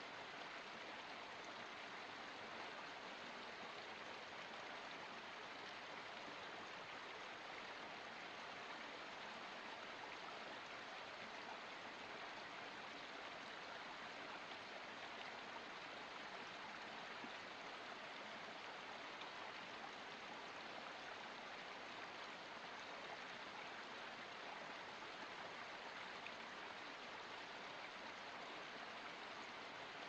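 Small forest stream spilling down a mossy rock cascade: a steady, unbroken rush and splash of running water.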